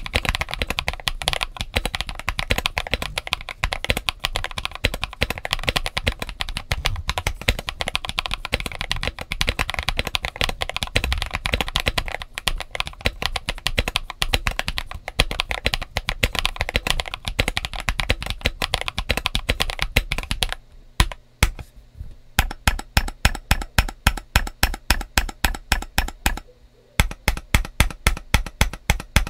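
Mechanical keyboard typing: a Mxrskey CK650 aluminum gasket-mount 65% board with Leobog Ice Soul tactile switches and Feker CSA PBT keycaps, typed on fast and steadily. About two-thirds of the way in it changes to single keys struck one at a time, about four a second.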